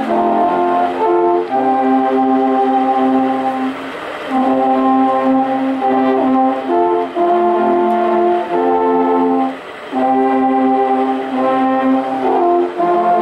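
An ensemble of alphorns playing a slow tune in sustained chords, the notes held a second or two each, with short pauses between phrases.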